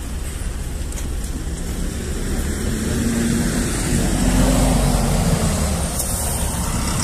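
Road traffic: a motor vehicle's engine over a steady low rumble, swelling louder about four seconds in and then easing off.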